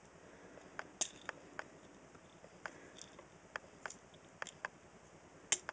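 Faint, irregular clicks and taps of small plastic toy parts being worked by hand as a Legends-class Transformers figure is transformed, with a louder click about a second in and another near the end.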